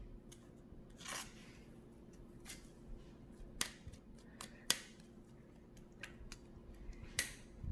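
Faint scattered clicks and soft scrapes from cake-decorating work as buttercream is piped around a cake layer.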